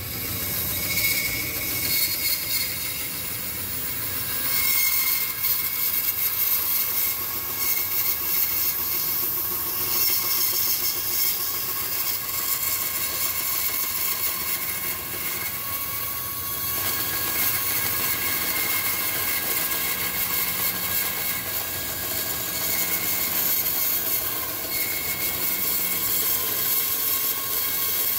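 Bandsaw cutting a maple neck blank: a steady machine whine with the high hiss of the blade in the wood, its level wavering a little as the cut goes on.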